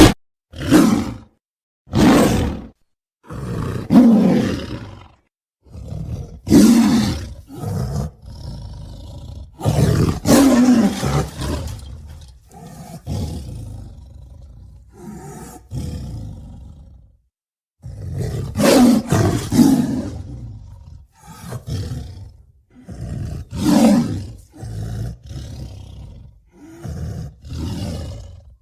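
A string of monster roars and growls, one after another, some short and some drawn out over a couple of seconds, separated by abrupt silent gaps.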